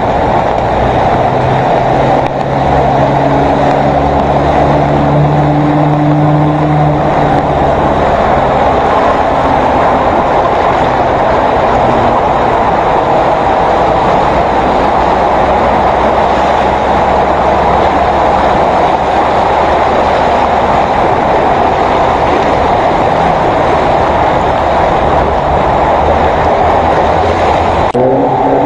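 Pickup truck engines running as the trucks drive through deep floodwater, over a steady rush of churned water. A low engine hum stands out in the first several seconds.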